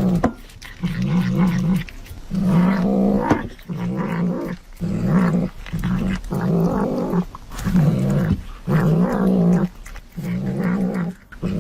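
A pet growling in a long series of drawn-out, low-pitched bouts, about one a second with short breaks between.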